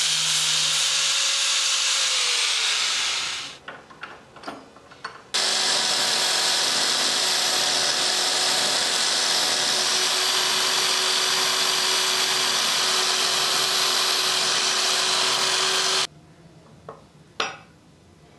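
Angle grinder with an abrasive disc grinding a steel hammer head: a loud, steady grinding hiss over the motor's whine. The motor winds down about three seconds in, leaving a few light clicks. Grinding starts again suddenly a couple of seconds later, runs steadily, then cuts off and gives way to a few light metal taps.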